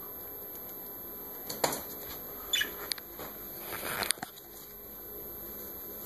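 Pet budgerigars moving in their cage: short bursts of wing flutter and rustling about one and a half and four seconds in, with a few sharp taps and a brief high chirp in between.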